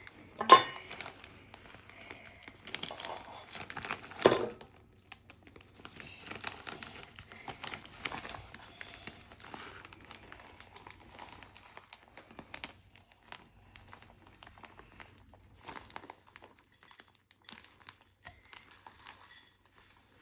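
A plastic bag of shredded coconut being opened wider and crinkled, with many small crackles and two sharp knocks, about half a second and four seconds in.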